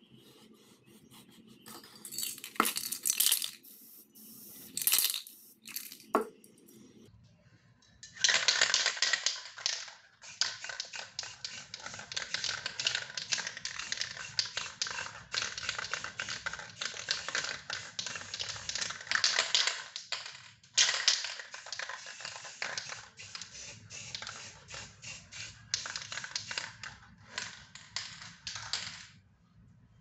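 Aerosol spray paint can hissing: two short bursts early on, then a long spray from about eight seconds in, broken once briefly partway through, that stops shortly before the end.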